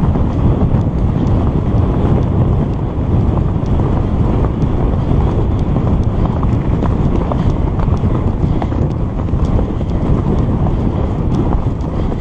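Loud, steady wind buffeting on the microphone of a camera riding a galloping horse, over the dull drumming of a herd of horses' hooves on a dirt track.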